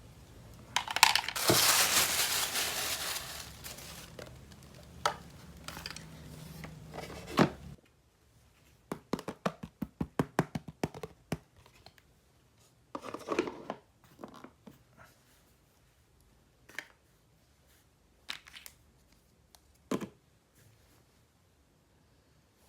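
Toy packaging being torn open and crinkled for a few seconds, then many light clicks and taps of plastic toy pieces being handled, including a quick run of clicks.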